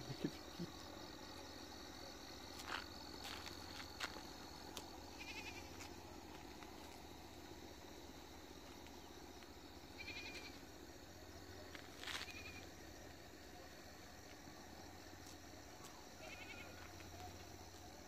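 Faint steady high-pitched drone of insects, with four short animal calls spread through it and a few light clicks in the first few seconds.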